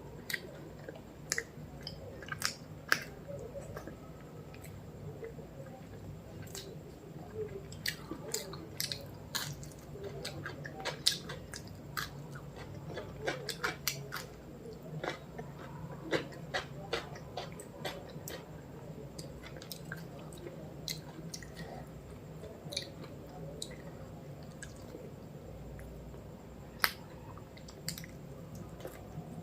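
A person chewing and eating close to the microphone, with many sharp mouth clicks and smacks scattered throughout, over a low steady hum.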